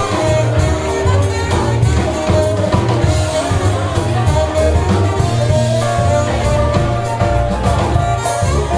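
A New Orleans-style brass band playing live: horns holding long notes over a strong low bass line and a steady drum beat.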